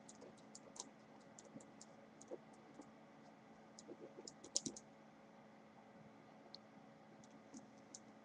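Faint, irregular small clicks and taps, bunched about four to five seconds in, over a low steady hum.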